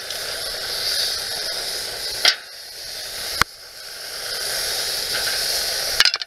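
Raw hamburger patties sizzling on a hot barbecue grill grate, a steady hiss that grows louder as more patties go down. Three sharp clicks against the metal grate along the way.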